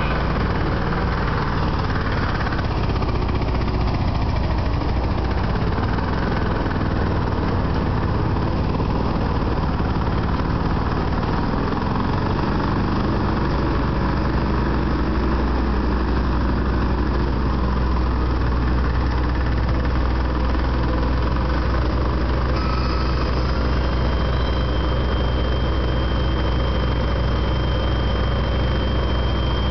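Tracked hauler (motorized power buggy) running steadily with a load of over 1,000 lbs of concrete in its hopper. About two thirds of the way through, a steady high whine joins the engine as the loaded hopper is raised for dumping.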